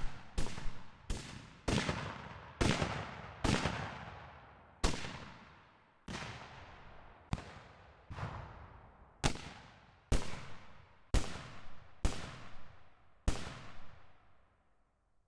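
A series of single gunshots from a weapon sound library, fired one at a time at uneven intervals about a second apart. Each crack is followed by a long, echoing tail that dies away. The last shot comes near the end and fades out.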